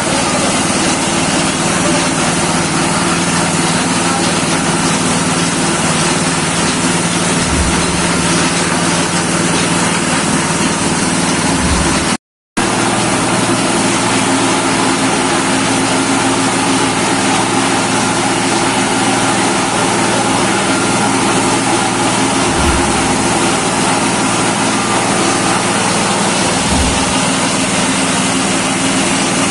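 Pellet crumbler machine running steadily, a loud continuous motor-driven machine drone with a grinding hiss. About twelve seconds in it cuts out for an instant, and the hum comes back at a slightly different pitch.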